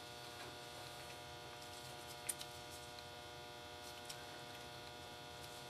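Steady electrical mains hum made of several even tones, with two faint clicks about two and four seconds in as pin headers are pressed into the circuit board.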